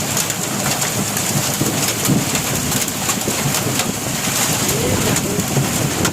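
Heavy rain falling steadily, with a dense patter of drops hitting a surface. A few low rising-and-falling bird calls come in about five seconds in.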